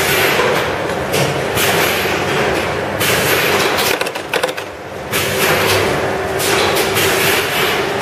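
Power cord plug crimping machine running loudly in a workshop: a steady hum under uneven swells of hissing noise, with a few sharp clicks about halfway through.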